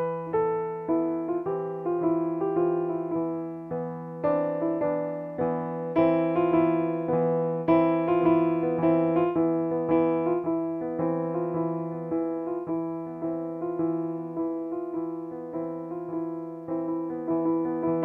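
Digital piano improvisation: a steady flow of struck notes and chords over a low note sustained under most of the passage.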